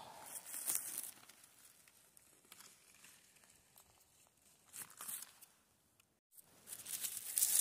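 Dry moss, pine needles and dead leaves rustling and crackling close to the microphone as hands pick a mushroom from the forest floor. It goes quiet in the middle, cuts out for a moment about six seconds in, then rustles louder near the end.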